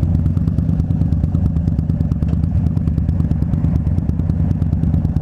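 Harley-Davidson Dyna Street Bob's V-twin engine running steadily under way, a loud low exhaust note with a fast, even pulse.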